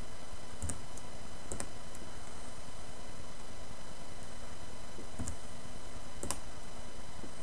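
A handful of faint computer mouse clicks, four in all, spread out over steady microphone hiss.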